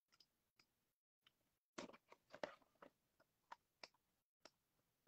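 Faint crackles and clicks of a cardboard booster box being opened by hand, a few sparse snaps about two seconds in and a couple more later.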